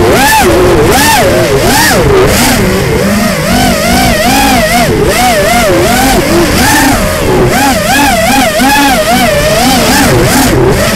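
FPV quadcopter's brushless motors and propellers whining, the pitch swinging up and down rapidly with the throttle, with gusts of wind noise over the onboard microphone.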